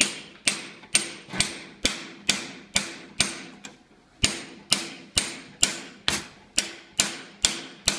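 Hammer striking a freshly sharpened cold chisel as it cuts a metal strip clamped in a bench vise, about two blows a second with a short pause about halfway. Each blow is a sharp metallic strike that rings briefly.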